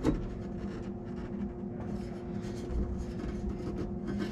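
A knock, then light scraping and rubbing as parts are handled and shifted in a truck's engine bay, over a steady hum.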